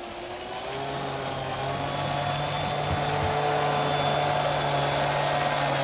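Brushless electric motor of a 4S RC deep-vee racing boat, the H-King Aquaholic V2, running slowly at steady throttle with a steady whine and water hiss. It grows louder over the first couple of seconds, then holds steady.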